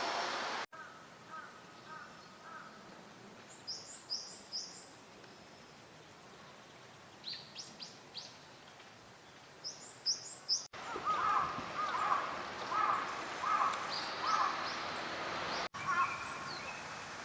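Birds calling over quiet outdoor ambience. A few high, thin chirps come first, then a louder run of about six short calls repeated roughly every half second, with brief sharp cuts between takes.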